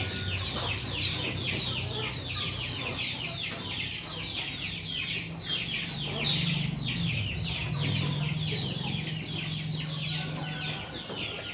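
Young chickens peeping without pause: a dense run of short, high, falling cheeps, several a second. A low steady hum runs underneath from about halfway to near the end.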